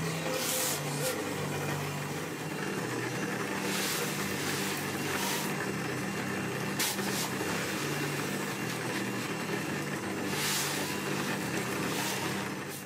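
Motor-driven malt mill running steadily as it crushes malt, a constant motor hum under a grinding hiss.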